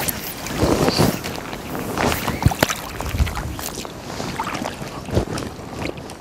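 Shallow river water sloshing and lapping around a person wading knee-deep, with wind on the microphone and a few soft knocks scattered through.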